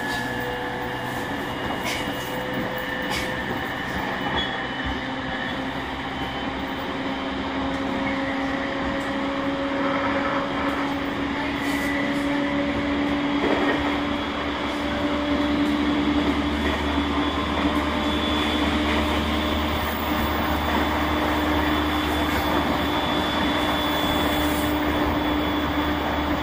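JR East E231 series 1000 equipment-renewed electric train, heard from on board: the traction motors' and inverter's whine rises slowly in pitch over the steady rumble of the wheels on the rails as the train picks up speed.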